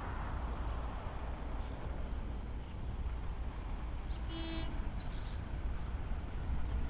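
Steady low rumble, with a short horn toot about four and a half seconds in.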